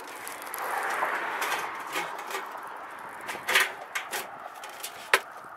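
Steel ridge cap being slid along the roof ridge, a steady scraping of sheet metal for a couple of seconds. A few short knocks and taps of the metal follow as it is pressed into place.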